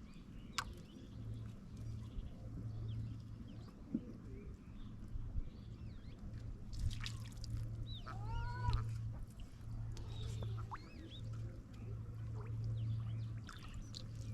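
Outdoor birds chirping and calling in short curved notes throughout, with one louder arching call about two-thirds of the way in, over a steady low hum that swells and fades.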